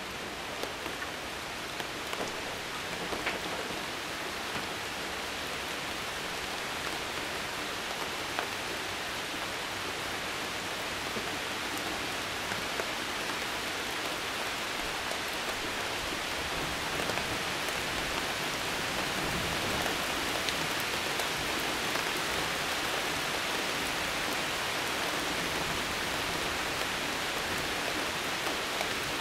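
Steady rain falling, a continuous hiss with scattered louder drop ticks, growing a little heavier about halfway through.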